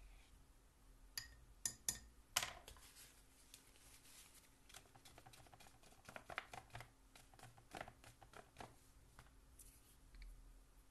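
Faint papery rustling and light scratchy dabs of a crumpled tissue pressed onto watercolour paper to blot the wet paint, in short clusters. A few sharp clicks come a second or two in, louder than the rest.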